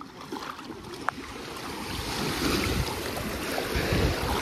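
Wind buffeting the microphone over rushing sea water, swelling louder about halfway through, with a single sharp click about a second in.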